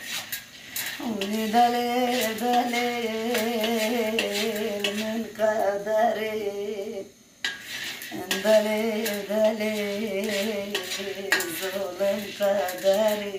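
A woman singing unaccompanied in long, wavering held notes, breaking off briefly about seven seconds in, over the clinks and scrapes of a metal spoon stirring terebinth (menengiç) berries in a metal pan as they roast.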